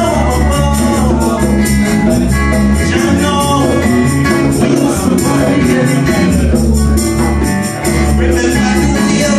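Live reggae band music with a heavy, shifting bass line and steady percussion.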